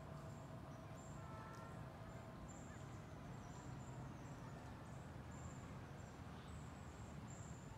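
Quiet outdoor ambience: a steady low rumble with short, faint, very high-pitched chirps scattered throughout.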